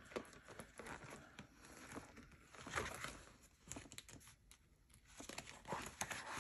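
Faint rustling and crinkling of paper banknotes and plastic envelope sleeves being handled, with scattered small clicks and taps.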